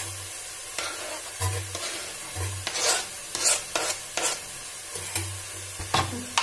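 A knife scraping chopped tomato off a plastic cutting board into a steel bowl, in a string of short, irregular scrapes and clinks. Underneath, onion, garlic and spices sizzle steadily as they fry in a covered kadai.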